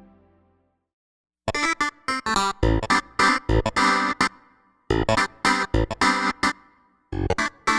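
Nord Electro 6D playing a synth preset: a held chord dies away, then after about a second of silence short staccato chord stabs come in a quick rhythm, in phrases broken by brief gaps.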